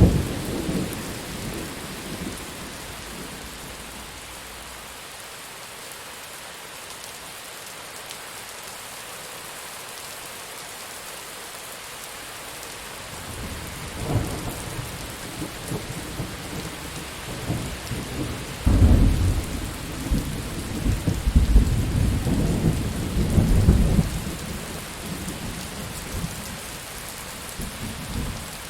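Steady heavy rain hissing, with rolling thunder: a rumble fades out in the first few seconds, then a second one builds about halfway through, peaks loudly with deep rumbling and cracks, and rolls away a few seconds before the end.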